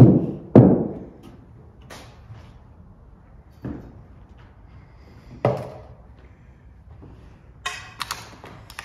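Three heavy thuds, the first and last loud, each ringing on briefly in a large empty hall, followed near the end by a short clattering rattle.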